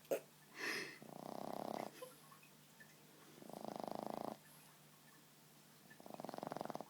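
Boston terrier snoring in its sleep: three fluttering snores, each just under a second long and about two and a half seconds apart. A short breath comes just before the first.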